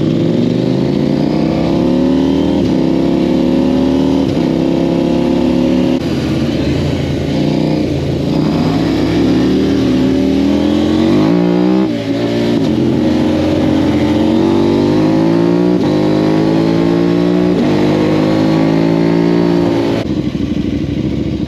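Quad fitted with a KTM Duke 790 parallel-twin engine accelerating hard through the gears. The pitch climbs and drops back at each upshift, several times over. About halfway it falls away briefly, then climbs through the gears again.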